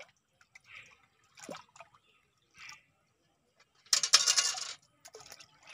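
Water sloshing and splashing in a stainless steel pot dipped in shallow river water, with a few small splashes and then one loud burst of splashing water, just under a second long, about four seconds in.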